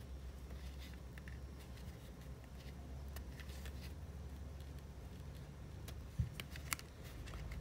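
Faint rustling and small clicks of a crochet hook working cotton string, with two sharper clicks a little past six seconds, over a low steady hum.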